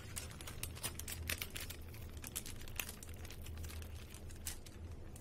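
Thin polythene sheet crinkling in quick, irregular clicks as oiled hands peel soft paratha dough off it, over a steady low hum.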